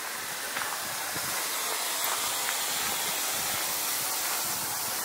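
Steady hiss of steam escaping from a MÁV Class 424 steam locomotive.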